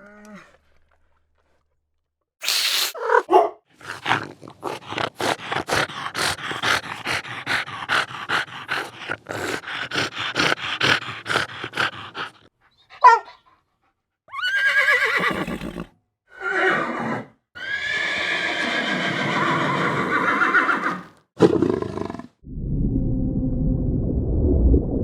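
Horse sound effects: a rapid run of sharp beats, about four a second for some eight seconds, then several whinnies with wavering pitch. Near the end a low rumbling roar begins.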